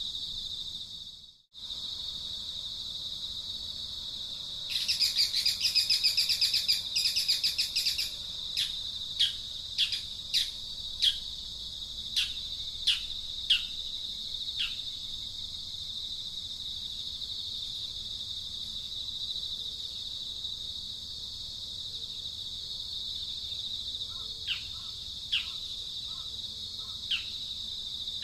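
Steady high-pitched insect drone with a bird calling over it: a rapid chattering trill a few seconds in, then a string of short falling chirps, with a few more near the end. The sound cuts out for a moment about a second in.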